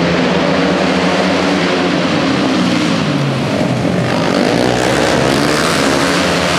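A pack of flat-track racing motorcycles running hard at once, several engine notes overlapping, their pitch rising and falling as the riders throttle off and back on through the turn.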